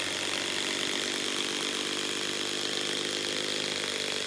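Hilti SID 4-A22 cordless 1/4-inch hex impact driver hammering steadily under load, driving an 8-inch lag screw down into a log stump.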